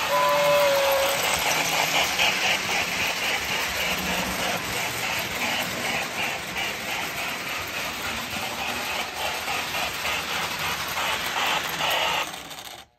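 Lionel O gauge Southern Pacific Daylight model steam locomotive: its two-tone steam whistle ends about a second in. It then runs on along the track with a steady rhythmic chuffing and the rattle of its wheels on the rails.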